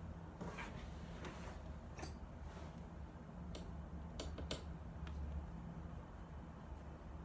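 Scattered light clicks and taps, about six in all, with two sharp ones close together around the middle, over a low steady hum.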